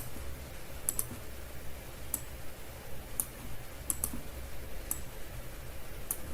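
Sparse clicks of a computer's mouse or keys, about seven scattered over a few seconds, two of them quick doubles, over a low steady hum.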